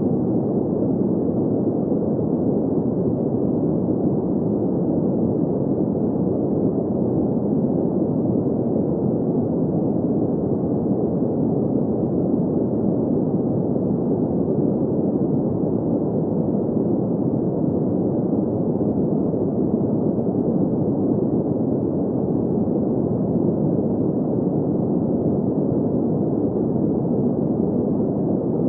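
Steady, even noise with most of its energy in the low middle range and no high hiss, as in green noise made for sleep. It holds the same level throughout and has no tones or clicks.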